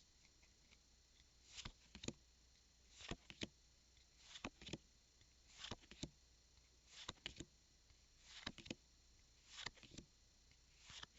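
Pokémon trading cards being flipped through one at a time from an opened booster pack, a soft swish and click of card sliding on card about once every second and a quarter.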